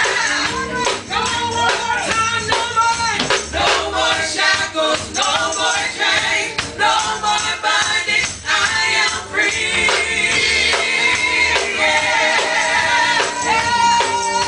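Gospel singing with tambourine shaken and struck in a steady rhythm.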